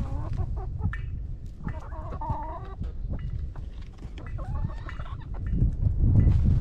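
Domestic chickens clucking in short pitched calls, the clearest run about two seconds in, over a steady low rumble.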